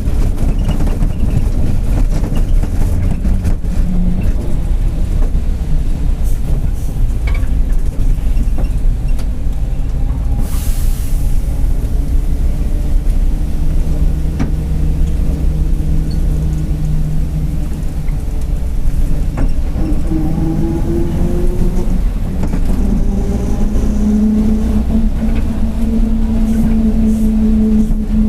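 Mercedes-Benz OF-1721 bus's diesel engine and drivetrain running under way, with a low rumble and a whining tone that rises and falls in pitch with speed: the differential growling. A short burst of hiss about ten seconds in.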